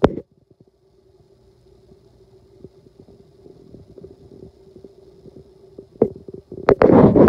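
Camera handling noise: scattered knocks and taps over a steady low hum, a sharp click at the start, and a loud rumbling rub near the end.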